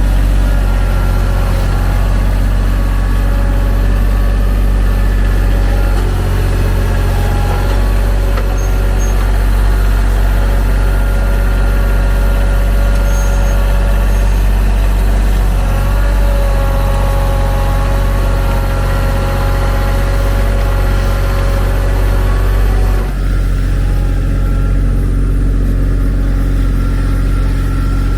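TYM T313 sub-compact tractor's diesel engine running steadily while the loader works, with a fainter higher whine that wavers in pitch. The sound changes abruptly about 23 seconds in.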